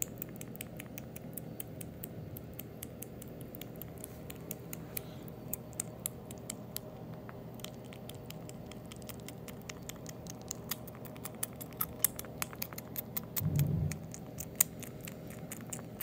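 Orange kitten eating wet cat food from a stainless steel dish up close: noisy, rapid, irregular wet chewing and lip-smacking clicks. A short low sound near the end.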